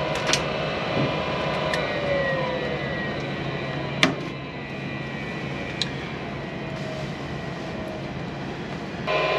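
Nordyne gas furnace running: a steady mechanical hum with a few light clicks and one sharp click about four seconds in.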